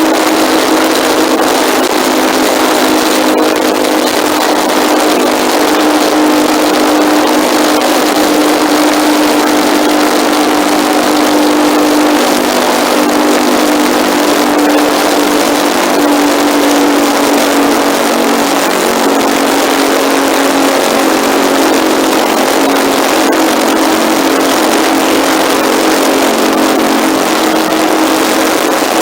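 Motorcycle engine running at a steady cruise, picked up by a handlebar-mounted phone, with heavy wind rush over the microphone. The engine tone holds steady and shifts briefly about two-thirds of the way through.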